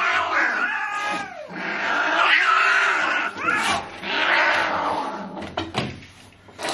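Angry domestic cat yowling and growling in about three long, rough stretches as it is pulled from its carrier and held down with handling gloves, a defensive, fearful cat. The sound fades near the end.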